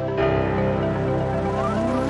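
Background music: sustained synth chords in an electronic new-age style. A new chord comes in shortly after the start, and a rising glide sounds near the end.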